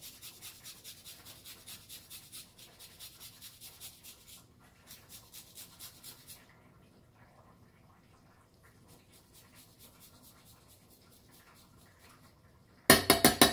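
Garlic being grated on a fine stainless-steel rasp grater: a rhythmic scratching of about four strokes a second, with short pauses. Near the end the rasping turns much louder and quicker.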